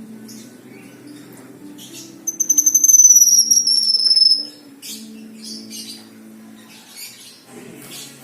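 Kinoi songbird singing: short high chirps and twitters, then a loud, high whistle held about two seconds that falls slightly in pitch, then more short chirps.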